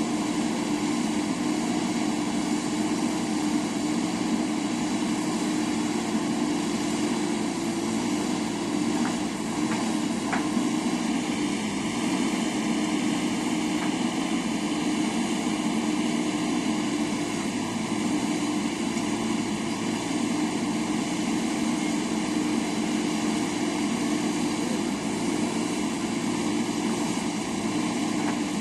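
Diesel engine of a JCB backhoe loader running steadily under working load.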